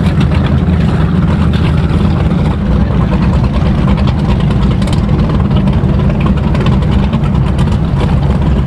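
Powerboat engines running at low cruising speed, a steady deep rumble that holds level throughout.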